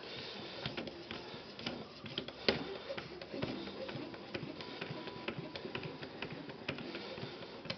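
Edge Pro sharpening stone, a 1000 grit water stone, stroked along the edge of a ZDP-189 steel knife blade: repeated light scraping strokes with small clicks, and one sharper click about two and a half seconds in.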